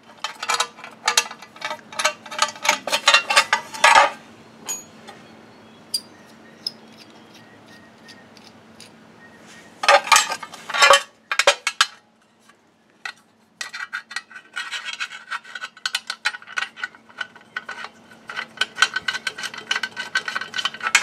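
Ricochet aluminum A-arm guard plate and its steel bolts, nuts and clamps clinking and rattling as they are handled and fitted together by hand. The clinking comes in three bouts: at the start, about ten seconds in, and again from about fourteen seconds on, with quieter handling between.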